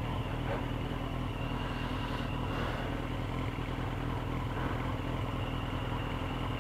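Motorcycle engine idling steadily at a standstill.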